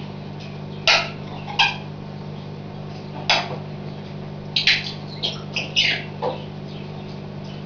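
A small pet sneezing over and over: about nine short, sharp sneezes, spaced out at first, then coming in quick succession in the second half.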